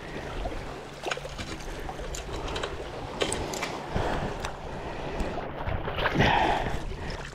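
Sea water washing against the rocks and wind on the microphone, with scattered small clicks and knocks and a louder rush of noise about six seconds in.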